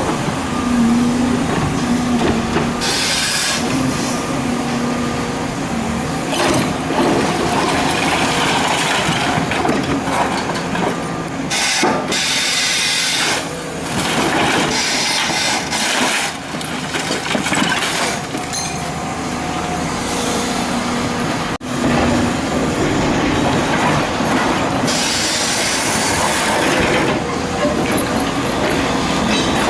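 Excavator working: diesel engine and hydraulics running under load, with several bursts of loud hissing and some metallic clatter.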